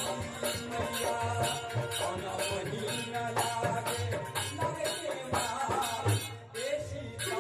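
Instrumental music of a devotional folk song: held instrument melody over an even beat of percussion and shaker, with a brief drop near the end.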